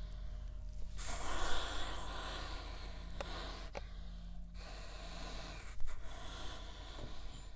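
Slow, heavy breathing in two long breaths over a steady low hum, with a few light clicks and a sharper knock about six seconds in.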